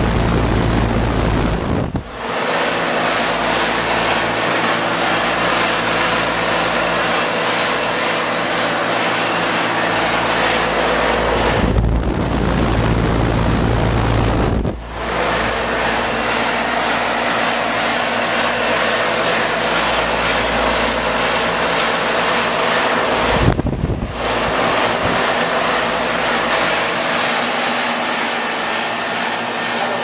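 Goodman central air-conditioner condenser running: a steady rush of air from its fan over a low hum from the compressor. Near the start and again about twelve seconds in, the sound turns to a low rumble of air blowing on the microphone.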